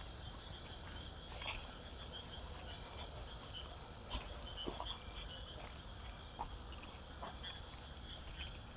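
Faint outdoor insect chorus: a steady high-pitched trill with scattered short chirps over it. A few soft clicks or rustles are heard, and a low rumble sits underneath.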